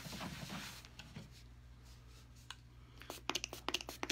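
Quiet room with a faint steady hum, then a quick run of light, sharp clicks and taps in the last second or so.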